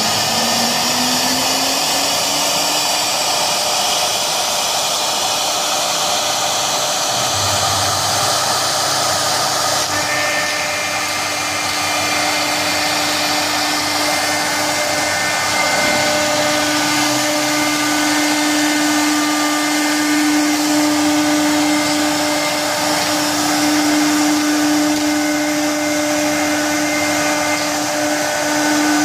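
CNC router spindle spinning up, its whine rising in pitch over the first couple of seconds, then running at a steady speed with a constant whine and hiss as the bit routes the board.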